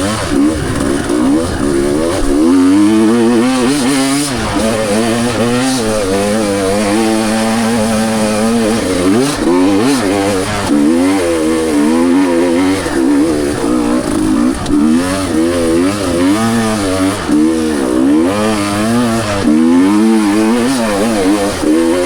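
Two-stroke dirt bike engine revving under load on a hill climb. Its pitch rises and falls continually as the throttle is worked on and off.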